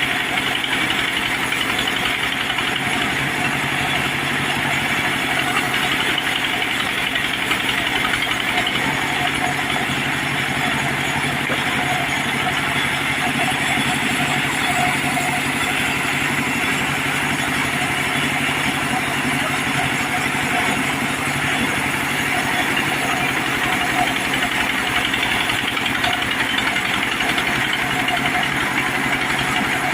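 Engine of a mobile sawmill running steadily at a constant speed.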